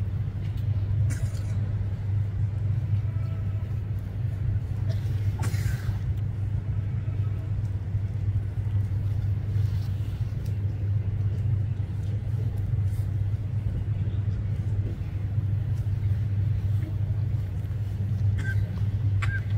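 Steady low outdoor rumble, with a few faint knocks.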